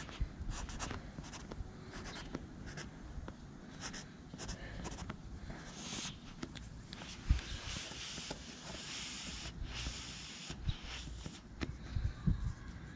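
Marker pen drawing short strokes on the vinyl of an inflated air mattress, a run of light scratchy rubbing strokes, with a few soft knocks.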